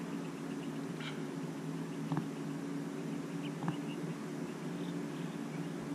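A steady low hum, with a couple of faint taps about two seconds and three and a half seconds in.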